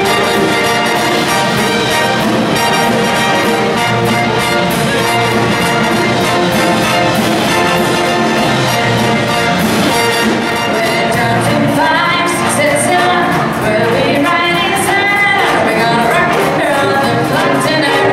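A big band playing live: a brass section of trumpets and trombones with saxophones, over drums and rhythm section, at a steady full volume.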